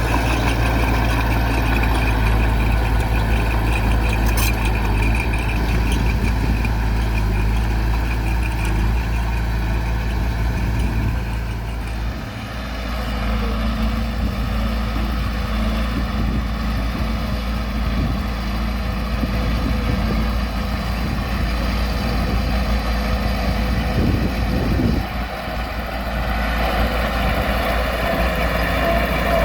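Heavy diesel engines of earthmoving machinery running steadily, with brief dips in level about twelve seconds in and again near twenty-five seconds.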